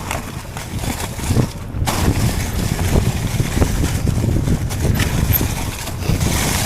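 Wind rumbling on the microphone during a mountain bike ride, mixed with the rattle and knocks of the bike going over the ground.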